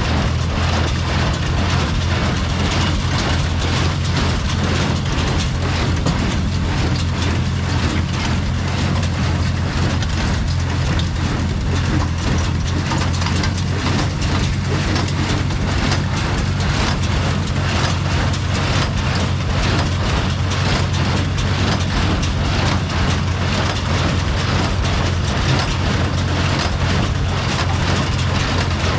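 Farmall M tractor's four-cylinder engine running steadily, with a dense, rapid mechanical clatter over its low hum.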